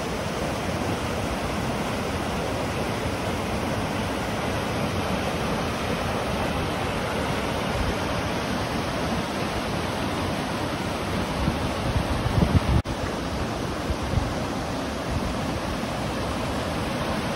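Small waterfall and fast stream rushing over rocks, a steady loud roar of white water. A short patch of low bumps of wind on the microphone comes about twelve seconds in.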